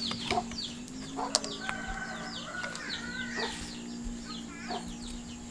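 Chickens clucking and peeping: many short, high, falling chirps, a few each second, with a few light knocks in between.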